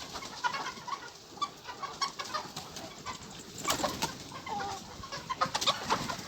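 Poultry shed full of layer hens and other birds: many short, overlapping clucks and calls.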